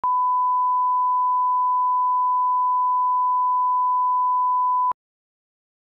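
Bars-and-tone line-up signal: a steady 1 kHz test tone, one unbroken beep of about five seconds that cuts off suddenly.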